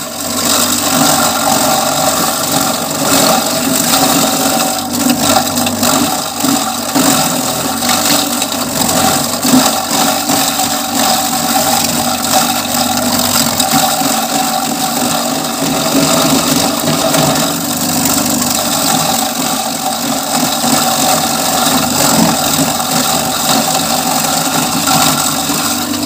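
Electric feed chopper (vegetable shredder) running steadily as zucchini is fed in and shredded. A continuous motor hum is mixed with the uneven noise of the vegetable being cut.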